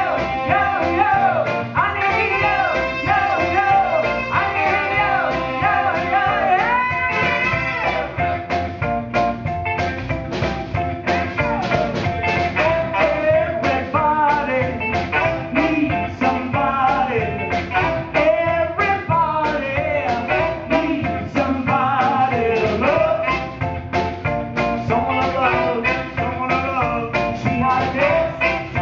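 Live soul and funk band playing: saxophone, electric bass and drums with a steady beat, and a woman singing at the microphone.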